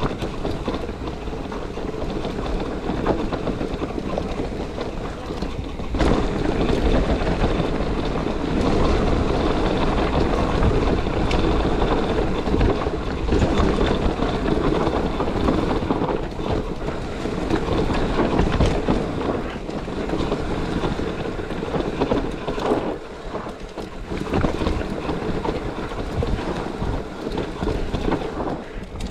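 Mountain bike running fast down a rough trail, heard from a bike- or rider-mounted GoPro: steady wind rush on the microphone and tyre noise, broken by scattered knocks and rattles from the bike over bumps.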